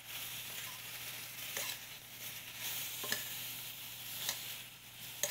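Apple slices sizzling in hot caramelizing sugar in a stainless steel skillet as they are stirred, the spoon clicking sharply against the pan a few times.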